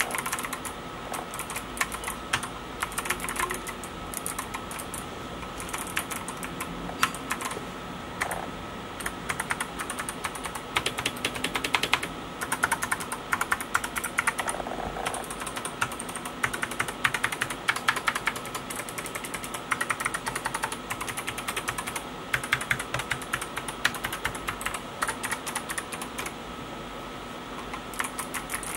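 Typing on a Geekstar GK801-2 keyboard with Kailh optical switches: a fast, uneven stream of key presses and keycap clacks in bursts, with short lulls.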